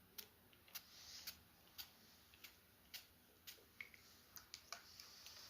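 Faint, sharp ticks, about two a second and not quite even, over near silence.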